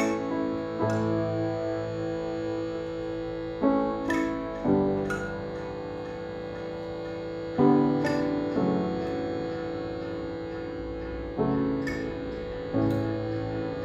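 Slow, calm instrumental music layered from thumb harp, shruti box, piano, recorder and accordion: a steady held drone with new plucked or struck notes coming in every second or few.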